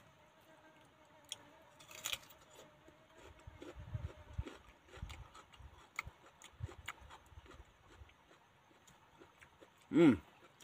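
Close-up chewing and crunching of raw vegetables, soft irregular mouth sounds with small clicks of handling. A short vocal sound comes near the end.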